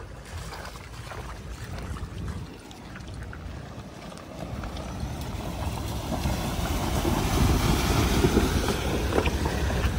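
Mahindra Scorpio S11 SUV driving through a shallow river crossing, its wheels splashing through the water. The rush of water and vehicle noise grows louder over the second half.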